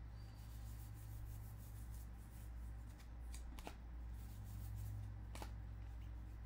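Baseball trading cards being flipped through by hand: soft rustling of card stock sliding off a stack, with a few faint clicks as cards snap past. A steady low hum runs underneath.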